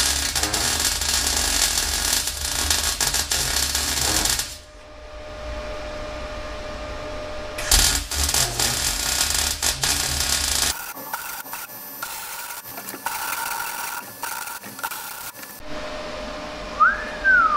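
MIG welding arc crackling steadily as a steel tube is welded on, in two runs: one lasting about the first four and a half seconds, the other from about eight to eleven seconds in. After that only a quieter hum, with a short rising-and-falling whistle near the end.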